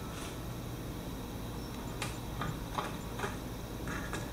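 A few faint, short clicks and taps from hands handling the ozone generator's tubing and clamps, starting about halfway through, over a steady low hum.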